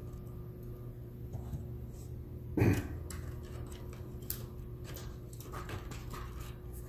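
Small clicks and taps of a screwdriver and fingers working in a laptop's plastic chassis as the battery screws come out and the battery is lifted free, with one louder short thump about two and a half seconds in, over a steady low hum.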